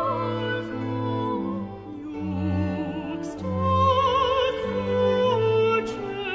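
Classical background music: a melody line with wide vibrato over slow, sustained low notes, in the manner of opera.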